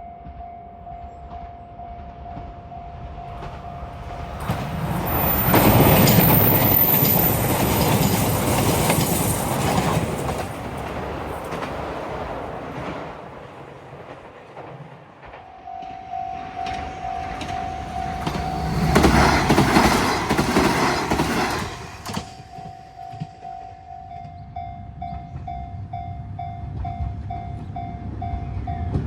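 Railway level-crossing warning bell ringing in a steady rapid repeat while trains pass. Loud rumble and wheel clatter swells about five seconds in and again near twenty seconds, drowning the bell each time.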